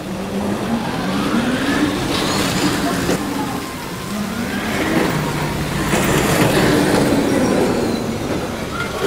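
BOLT roller coaster car running along its steel track, a continuous rumbling rush with a pitch that rises and falls as the car speeds around the circuit.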